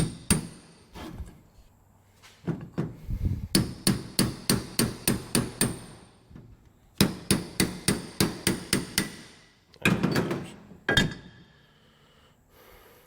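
Hammer striking metal parts of a water pump during disassembly: a few single knocks, then two quick runs of about a dozen ringing taps each, then a couple of heavier blows near the end.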